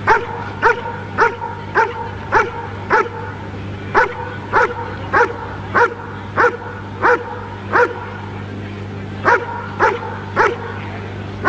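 German Shepherd Dog barking at a helper in a hiding blind: the hold-and-bark (Verbellen) of a Schutzhund protection routine, showing the dog has found the helper and is holding him in place. Short, even barks come about every 0.6 s, with two brief breaks, over a steady low hum.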